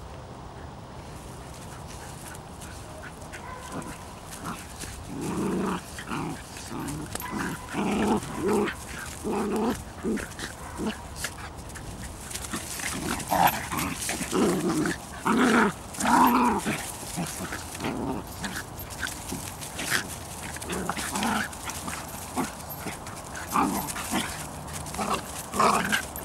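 Bedlington Terrier puppies and their mother play-fighting, giving short, repeated dog vocalizations, yips and play noises, in quick runs. It starts about five seconds in, is busiest in the middle, and picks up again near the end.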